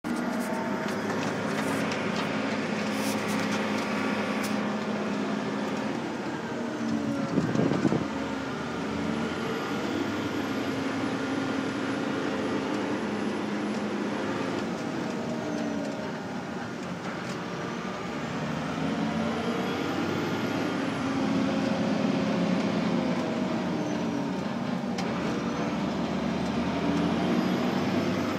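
Turbocharged diesel engine of an STX 380 tractor running steadily, with a high turbo whistle. The whistle rises and falls in pitch in slow sweeps about every ten seconds as the engine note shifts.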